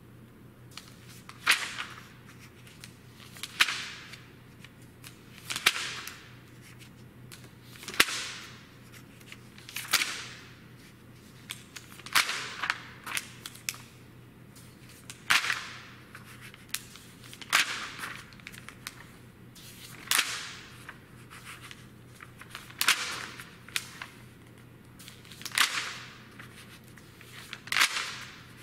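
Glossy magazine pages being turned by hand one after another, each turn a short, sharp papery swish, roughly every two seconds.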